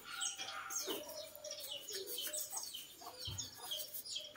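Birds chirping: a quick, faint series of short calls, each sweeping down in pitch, repeating several times a second.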